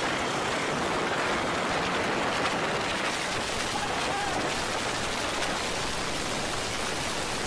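Steady rushing noise on a police body-worn camera's microphone, as of wind and clothing rubbing over it.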